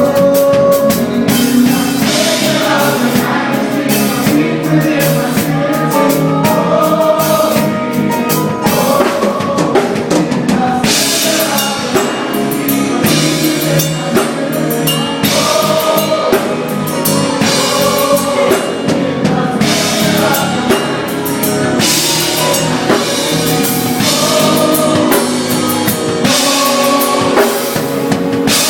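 A live band playing a song during a sound check, with a drum kit keeping a steady beat under singing and pitched instruments.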